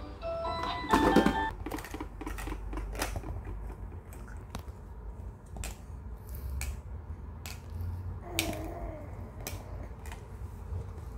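Small plastic toys clacking and tapping as a baby handles them: irregular clicks and knocks, with a louder clatter about a second in as a light-up musical baby toy's electronic tune stops. About eight seconds in there is a short baby vocal sound.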